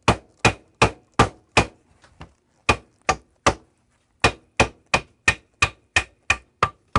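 A tape-wrapped 2x4 used as a hammer knocking a wooden wedge into the crack between two stuck-together 2x2x1 inch N40 neodymium magnets to split them apart. Quick wood-on-wood knocks, about three a second, in three runs with two short pauses.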